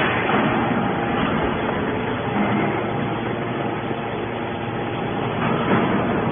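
Small hydraulic scrap-metal baler for aluminium scrap running: a steady machine noise from its motor and hydraulic pump, with a brief louder surge at the start and another near the end.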